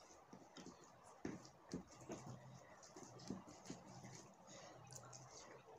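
Faint eating sounds: soft clicks and smacks of chewing and of fingers mixing rice on a plate, several in a row from about a second in. A faint low hum runs under them through the middle.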